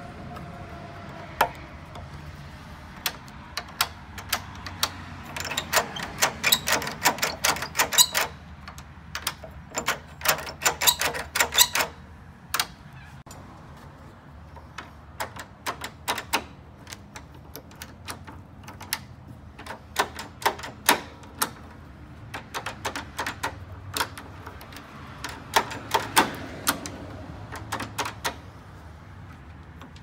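Metal clicks and clacks of a screwdriver and the parts of an old Weiser key-in-knob handleset being worked as the lock is refitted to a door. Scattered single clicks, with two dense runs of rapid clicking, the first from about five seconds in and the second near the end.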